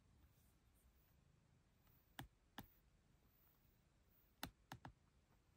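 Near silence in a quiet room, broken by a few faint, sharp clicks: two a little after two seconds in, then three close together about four and a half seconds in.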